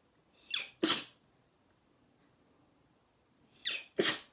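A woman sneezing twice, about three seconds apart. Each sneeze has a short, sharp lead-in followed by the main burst.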